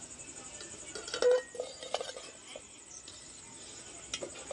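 A few light knocks and a short ringing clink of dishware being handled, the clink the loudest sound, about a second in, with another knock near the end, over a steady high-pitched drone.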